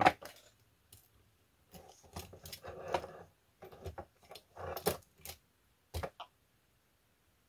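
Small metal parts of a Lionel 3472 milk car mechanism clicking and rattling as they are handled: a sharp click right at the start, scattered clicks and light rattles over the next few seconds, and two quick clicks near the end.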